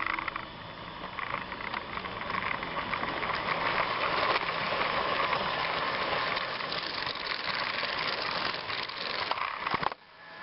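Model train set running on its track: a steady clattering whir of the motor and wheels that cuts off abruptly near the end.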